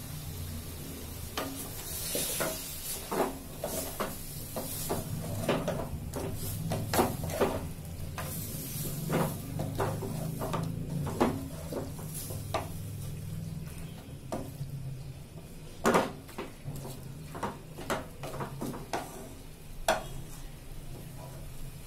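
Wooden spatula stirring and scraping chicken pieces and spices around an aluminium pot, with irregular knocks against the pot's side and one louder knock past the middle, over a steady sizzle of frying in oil.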